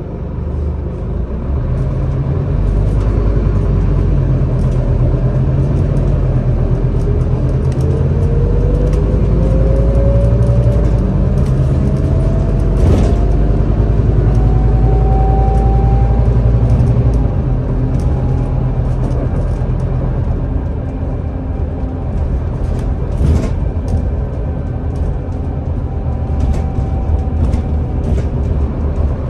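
Inside a Scania Citywide articulated city bus pulling away and driving: heavy low engine rumble that grows louder as it moves off, with a whine that rises steadily in pitch as the bus gathers speed, then eases as it cruises. A few sharp knocks from the bus body.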